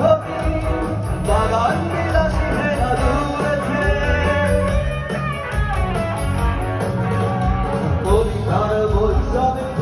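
Live band music with a singer and a steady beat, amplified through a stage PA.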